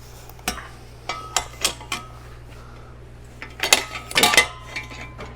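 Metal hand tools clinking: a socket wrench and extension knocking against metal in a series of sharp clicks, with a cluster of louder clinks about four seconds in.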